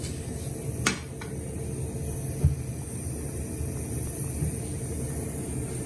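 A pot of pasta water at a rolling boil on a gas hob, a steady bubbling rumble. There are a couple of light clicks about a second in and a single sharper knock about two and a half seconds in.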